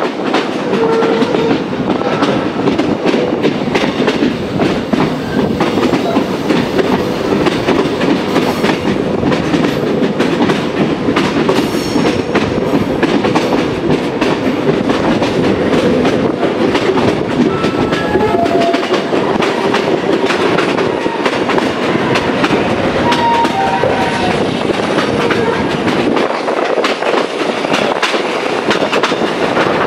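Passenger train (the SE19) running along the track, heard from aboard at an open coach window: a steady rumble with the wheels clattering on the rails and brief high squeals now and then.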